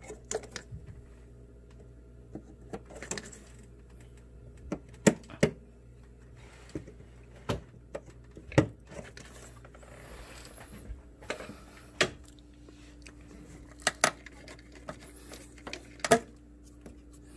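Sharp clicks and snaps of plastic wiring-harness clips being pried out of a metal bracket with needle-nose pliers, the pliers and harness knocking against the metal. The clicks come singly and at uneven intervals, about a dozen in all, loudest about five seconds in, over a faint steady hum.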